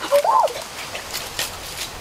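Footsteps and rustling through dry grass and brush, with a brief whine-like call that rises and falls near the start.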